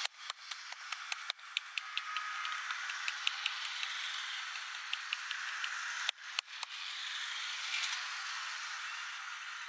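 Sharp clicking taps from a barber's hands during a head massage, over a steady hiss of street noise. The clicks come several a second for the first few seconds, then a louder group of three comes about six seconds in.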